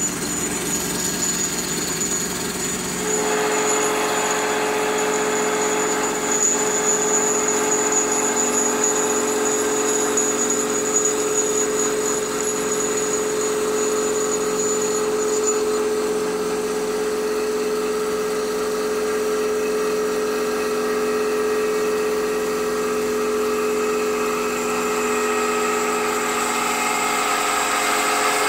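CNC automatic wood-turning lathe running and cutting a wooden spindle: a steady machine whine made of several held tones over the hiss of cutting. About three seconds in a stronger tone joins, and a high thin tone drops out about halfway.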